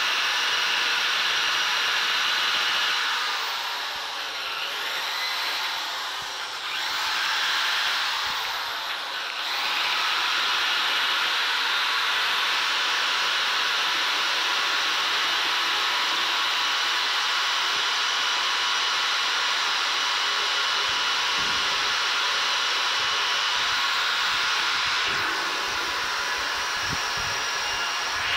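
Corded electric drill fitted with a carving bit, running steadily as it grinds wood out of a bonsai trunk. Its whine dips and wavers several times between about four and ten seconds in, and again briefly near the end.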